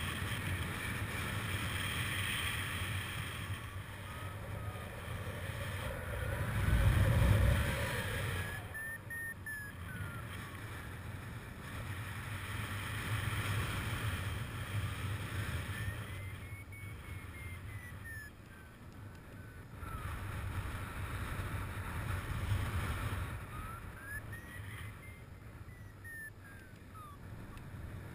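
Wind rushing over the microphone of a paraglider pilot's harness-mounted camera in flight, a steady low buffeting that swells in gusts, loudest about seven seconds in. Faint beeping rises and then falls in pitch three times.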